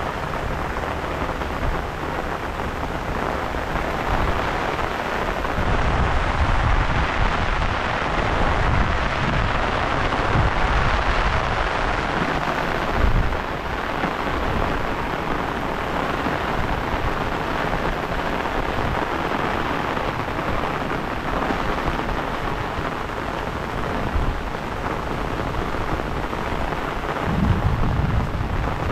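Heavy rain falling steadily on flooded rice paddies, grass and river water, a constant hiss. Now and then low rumbling surges come in under it, strongest near the end.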